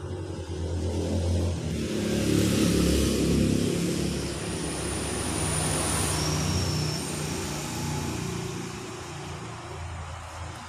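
A motor vehicle running and passing by, loudest about two to four seconds in and then slowly fading.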